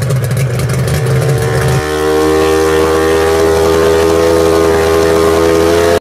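Remote-control powerboat motor running steadily, its propeller churning water. Its pitch shifts once, about two seconds in.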